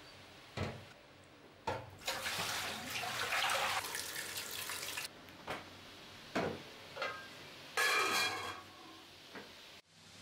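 Water being drained off soaking beef tripe from an enamel pot, splashing for about three seconds. Before and after it come knocks and clanks of enamel pots, with a louder splash and clank near the end.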